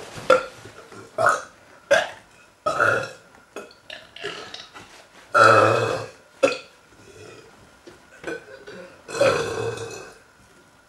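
Deliberate, forced belches from two people taking turns in a contest. A string of short burps, with two long, loud ones a little past the middle and near the end.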